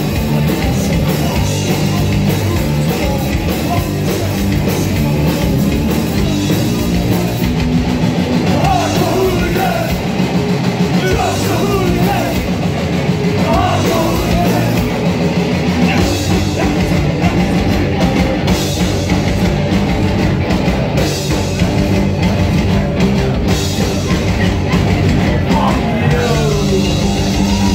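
Hardcore punk band playing live: loud distorted guitar and pounding drums with a shouted lead vocal, heard from inside the crowd.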